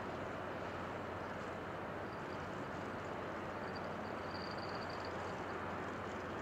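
Ship's engine running with a steady low hum under a constant noisy rush. A faint high whine comes in for a few seconds around the middle.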